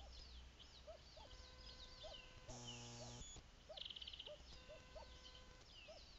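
Faint songbirds singing, with short whistled notes repeating throughout. About two and a half seconds in, a low electrical buzz from the nest camera sounds for under a second, and a quick trill follows about a second later.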